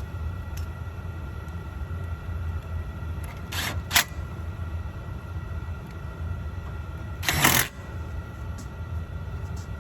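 Steady low machine hum, broken by two short noises: a sharp click about four seconds in and a brief rustling burst about seven and a half seconds in.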